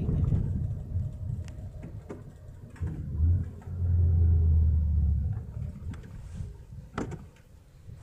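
Low rumble of a moving vehicle on a winding mountain road. It swells loudest for a couple of seconds in the middle, then fades, with a sharp click near the end.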